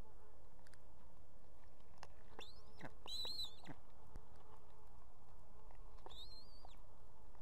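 Ospreys at the nest calling: three high, slightly wavering whistled calls, about two, three and six seconds in, each ending with a drop in pitch, over a steady low background hiss.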